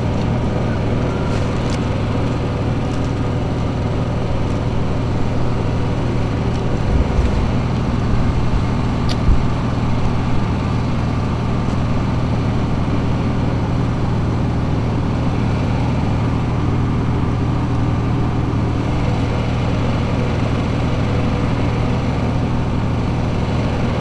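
A small engine running steadily with a low, even hum, with a few soft knocks between about seven and ten seconds in.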